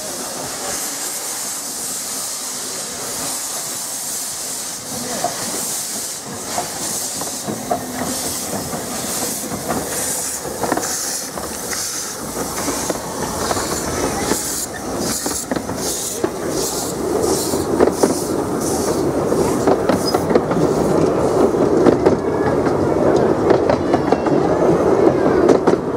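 Kitson Meyer 0-4-0+0-4-0T articulated steam tank locomotive hissing steam, then working past with a quick, even run of exhaust chuffs. Near the end the rolling rumble and clatter of its narrow-gauge coaches' wheels on the rails grows louder.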